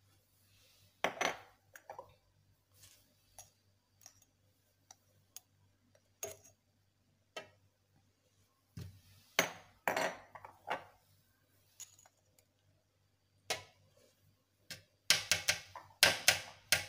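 Metal spoon tapping and clinking against a cooking pot and spice containers while spices are spooned in: scattered sharp knocks, with a run of quick taps near the end.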